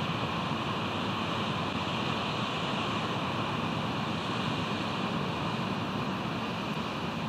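Steady, unbroken wash of ocean surf and wind, with no eagle calls.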